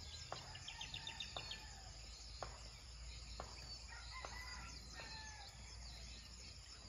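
Faint rural ambience: a rooster crowing in the distance with other birds calling, including a quick chirping trill about a second in, over a steady hiss and a few soft ticks.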